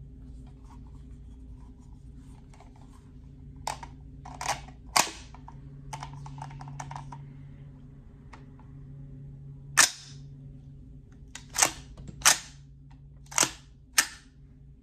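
Action of an AR-15-style rifle in .350 Legend worked by hand as rounds are cycled from a Duramag magazine: about eight sharp metallic clacks from the charging handle and bolt, three close together and then five more a few seconds later, with lighter handling clicks between. A round hangs up instead of chambering, the feed problem this rifle has.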